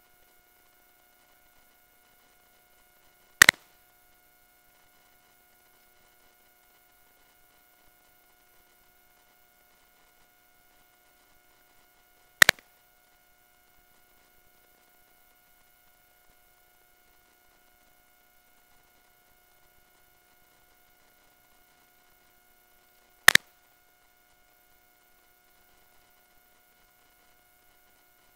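Three sharp, loud clicks spaced about nine to eleven seconds apart, over a faint steady electronic whine.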